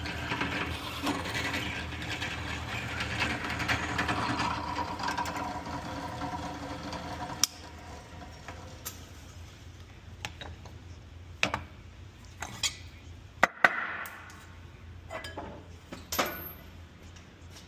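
A machine runs steadily with a whirring, gear-like mechanical noise, then stops abruptly with a click about seven seconds in. After that come scattered sharp metallic clicks and clinks.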